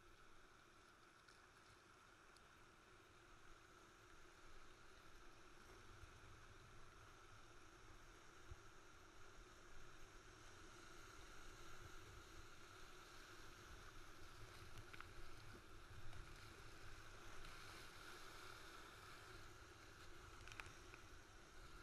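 Faint, steady rush of whitewater rapids around a kayak, growing louder over the first half as the kayak moves into the rapid, with a few small splashes.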